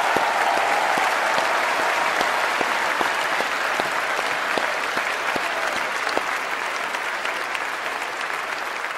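Large audience applauding steadily, the applause slowly dying down.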